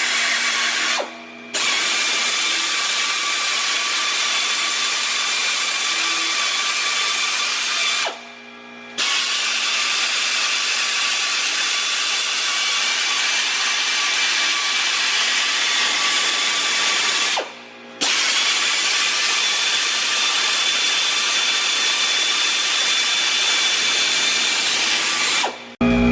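Steady, loud hissing of tyre-shop machinery or an air tool running. It stops briefly about a second in, around eight seconds in, around seventeen seconds in and again near the end.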